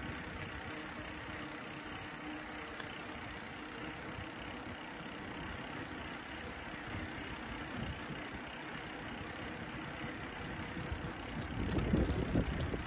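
Street traffic: a vehicle engine running steadily, with a louder low rumble building near the end.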